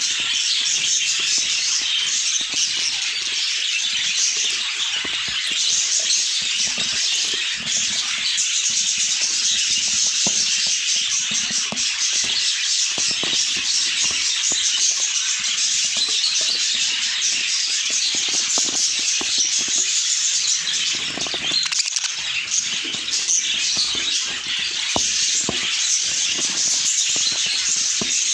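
A flock of budgerigars chattering and warbling together in a dense, continuous chorus of high, rapid chirps.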